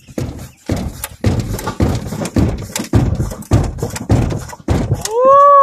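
Repeated irregular thumps and knocks from an engineless Camaro's body and suspension as it is rocked by hand to lift the front wheels off the ground. Near the end a person gives a loud whooping "woo" that rises and falls in pitch.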